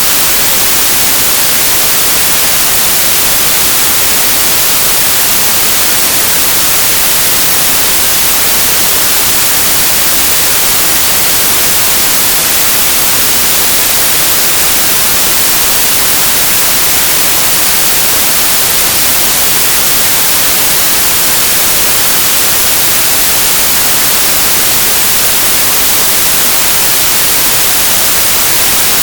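Synthesized stereo white noise: a steady, even hiss, bright and loud, with no changes or events.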